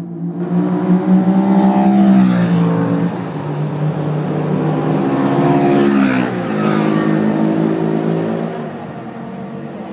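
BMW HP2 Sport's boxer twin engine running hard through official silencers, with its true engine roar still coming out: the engine note climbs for about two seconds, drops, climbs again and falls away about six seconds in, then settles lower.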